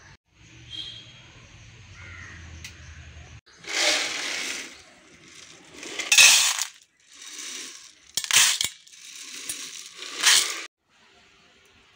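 Dry black-eyed peas (cowpeas) being stirred and rubbed by hand in a stainless steel bowl, rattling and clinking against the metal in about five short bursts.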